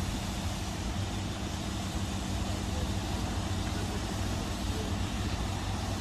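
Diesel shunting locomotive's engine running steadily at low revs as it slowly propels a brake van.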